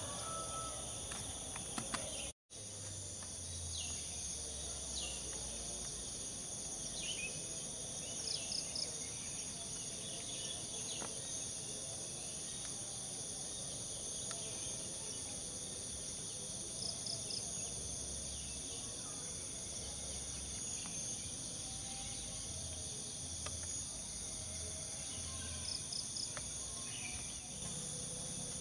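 Steady high-pitched chorus of insects, with scattered short high chirps breaking in every few seconds. The sound drops out for an instant about two seconds in.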